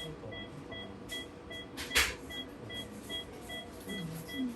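Veterinary patient monitor beeping about twice a second with the anaesthetised cat's heartbeat, short evenly spaced pips. A sharp clack of an instrument or object is heard about two seconds in.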